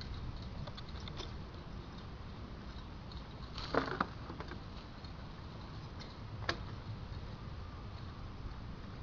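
A Netherland dwarf rabbit grazing in long grass: scattered small clicks and rustles of nibbling and moving stems, with a louder crackle about four seconds in and a single sharp click a little later, over a steady low rumble.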